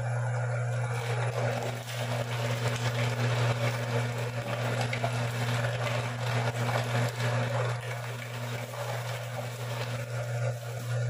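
Electric meat grinder running with a steady motor hum while grinding soaked chicken heads. A continuous crackling, crunching noise comes from the bone and meat being forced through the auger and plate.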